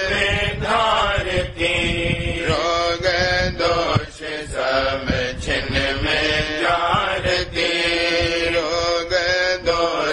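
A Radhasoami devotional hymn (shabd) sung in Hindi to a chant-like melody, over instrumental accompaniment.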